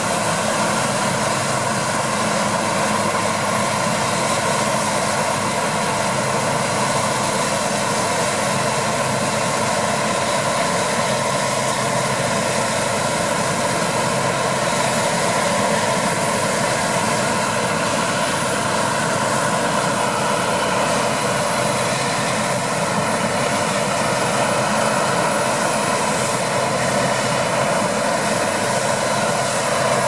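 CLAAS Lexion 570+ combine harvester running steadily while harvesting wheat: a loud, constant drone of diesel engine and threshing machinery that holds even throughout.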